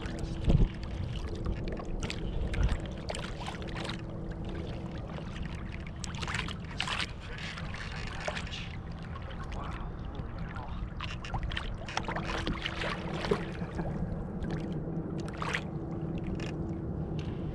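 Water sloshing and splashing against a kayak, with scattered short knocks and rustles over a steady low rumble. A faint steady hum comes and goes.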